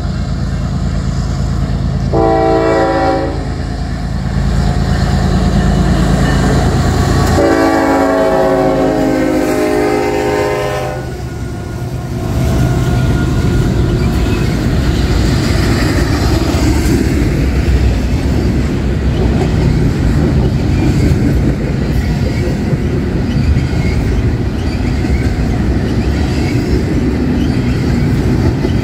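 GE GEVO diesel locomotives of a CN double-stack freight working hard in notch 8, the leader's Nathan K5HLA five-chime horn giving a short blast about two seconds in and a long blast from about seven seconds in; the uploader is unsure whether its #4 chime is working or dead. From about twelve seconds the steady noise of the double-stack cars' wheels on the rails takes over.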